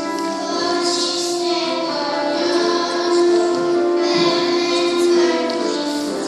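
A children's song: children's voices singing over instrumental backing music, with a long held note in the middle.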